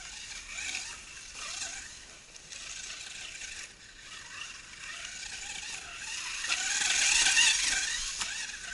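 Brushed electric motor and gears of an FS Racing Marauder RC monster truck whining as it drives over leaf-covered ground, the pitch rising and falling with the throttle. It grows loudest about seven seconds in as the truck comes close, then fades.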